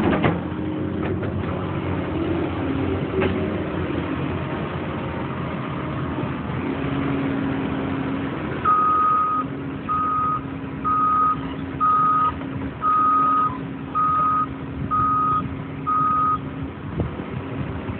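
Cat 320EL hydraulic excavator's diesel engine running steadily. About halfway through, its travel alarm starts beeping, eight short beeps at roughly one a second, which marks the machine tracking.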